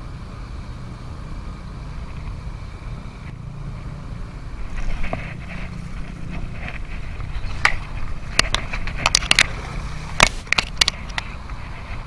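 Steady wind rumble on the microphone. From about halfway there is a run of sharp, irregular splashes and clicks as a hooked peacock bass is fought close to the surface on a light spinning rod and reel.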